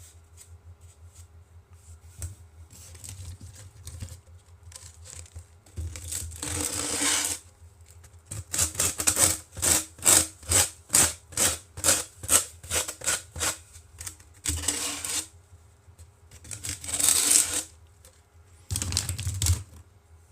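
Rubbing strokes on a hard surface: one long stroke, then a quick, even run of about two short strokes a second, then three longer strokes near the end.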